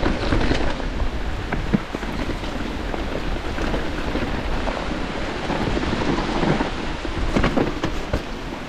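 A Giant Glory downhill mountain bike ridden fast down a wet trail: heavy wind rumble on the microphone, with the tyres hissing over the wet ground and frequent clicks and knocks as the bike rattles over rough terrain.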